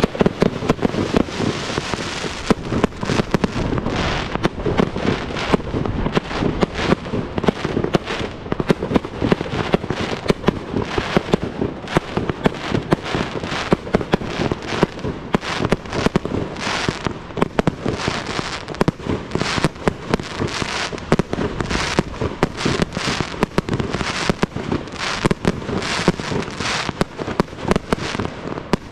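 Aerial fireworks display: shells launching and bursting in a dense, unbroken barrage of sharp bangs and crackle, several reports a second.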